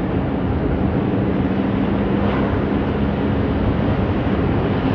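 Steady engine and road noise of a moving car, heard from inside the cabin, with a steady low hum.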